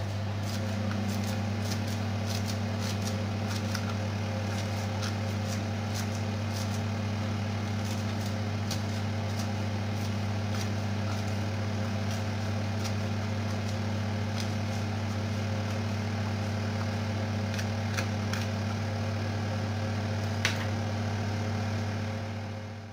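Kitchen knife chopping fresh parsley on a plastic cutting board: quick, irregular taps, many in the first half and fewer toward the end, over a steady low hum.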